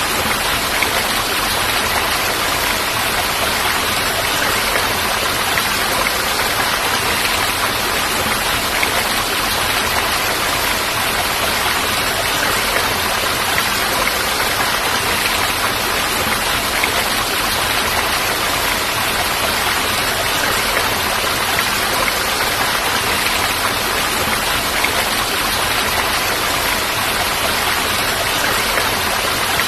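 Falling water rushing steadily and evenly, with no breaks or changes.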